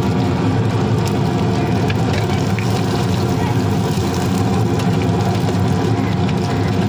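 Chicken pakodi deep-frying in hot oil in an iron kadai, sizzling as a slotted ladle stirs and lifts the pieces, over a steady low engine hum.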